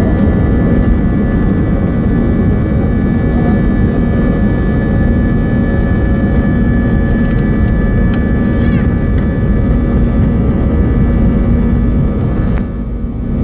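Airbus A320 jet engines heard from inside the cabin during the takeoff roll: a loud, steady rush with steady high fan tones over a low drone, dipping briefly near the end.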